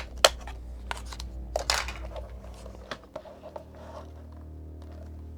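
Clicks, knocks and rattles of small plastic and metal parts being handled while a small robot's leg is taken apart, over a steady low hum.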